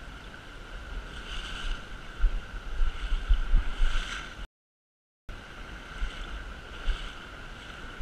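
Shallow river water rushing over a stony bed, with wind buffeting the microphone in irregular low gusts, heaviest in the middle of the stretch. The sound cuts out completely for under a second about halfway through.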